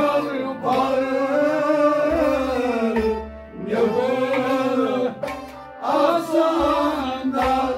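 Kashmiri Sufi song: a singer's voice in three long, bending sung phrases over music with tabla.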